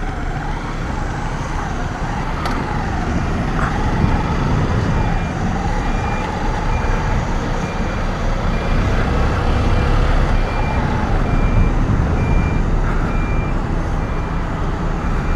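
Motorcycle engine running with low road and wind rumble, its pitch rising and falling with the throttle. From about three seconds in, a reversing alarm sounds evenly spaced short beeps, typical of a truck or earthmoving machine on a road-building site.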